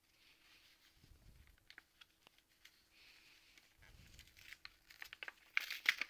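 A Pokémon card pack's wrapper being torn and crinkled open by hand, a struggle to open. It is faint at first, with louder crackling near the end.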